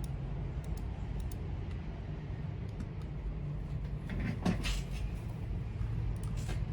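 A few scattered key presses on a mechanical keyboard with lubed Gateron Yellow linear switches, over a steady low hum. A louder knock with a short scrape comes a little past halfway.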